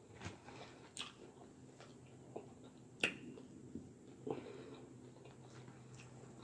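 Quiet eating sounds: a fork clicking and scraping against a clear salad bowl several times, the sharpest click about three seconds in, with soft chewing of salad between.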